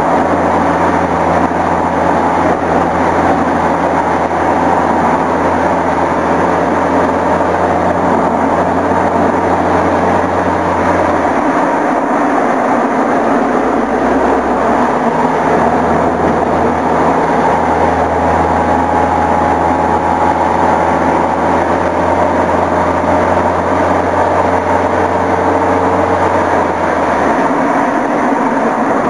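Loud, steady driving noise picked up by a small camera mounted on the front of a moving car: a rushing wash of wind and road noise over a low hum, which drops away for a few seconds about twelve seconds in and again near the end.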